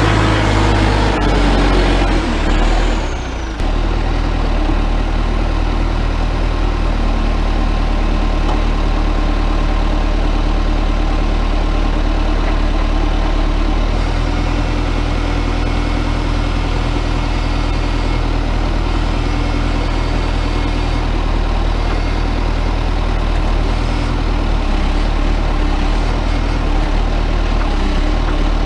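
1994 JCB 214 backhoe loader's diesel engine running steadily, with a short dip in level about three and a half seconds in and a change in its note about fourteen seconds in.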